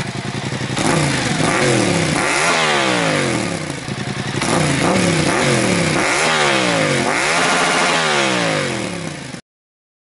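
Yamaha XSR700's 689 cc parallel-twin engine revved through an Akrapovic Racing Line titanium exhaust: the revs climb quickly and fall back more slowly, about four times in a row.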